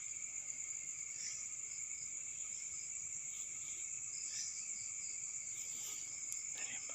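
Steady chorus of crickets: a continuous high-pitched trill.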